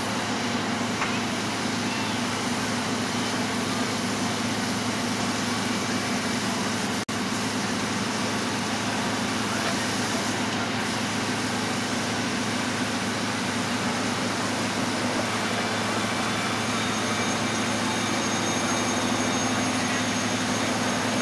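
Fire engines running steadily to pump water to the ladder and hose streams: a constant engine drone under a steady rushing noise.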